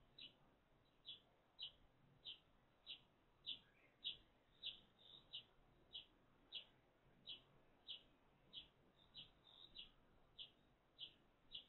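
Eurasian tree sparrow chirping, a faint short high chirp repeated evenly, a little under two a second.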